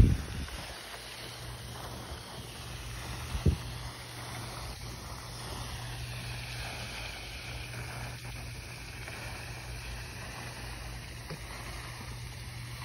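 Steady outdoor background noise, a low hum under an even hiss, with a short low bump on the microphone at the start and another about three and a half seconds in.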